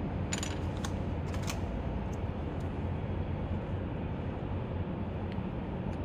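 A few light clicks and taps in the first second and a half as metal-backed motorcycle brake pads are picked up off a steel bench vise and handled, over a steady low background noise.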